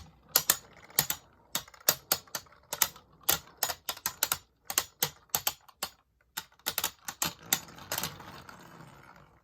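Two Beyblade Burst spinning tops clashing in a stadium: a string of sharp, irregular plastic clicks as they knock together, over a faint whir of spinning that swells and then fades near the end.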